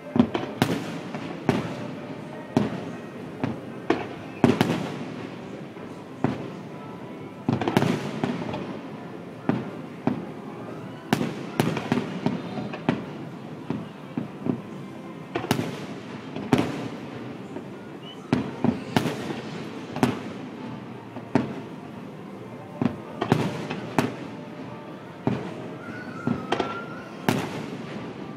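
Aerial firework shells bursting one after another at irregular intervals, roughly one or two sharp bangs a second, each followed by an echoing tail, over a continuous background din.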